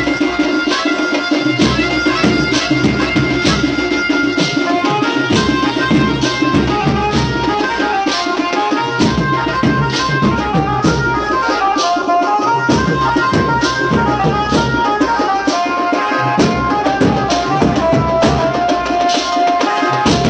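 Instrumental music: a steady, quick drum beat under a melody that steps up and down.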